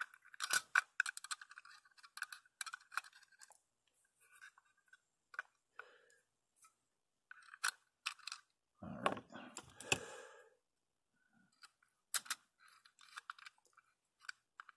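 Light, scattered clicks and taps of steel tweezers and tiny machine screws against a plastic enclosure and circuit board, with hands handling the case. A denser clatter comes about nine seconds in.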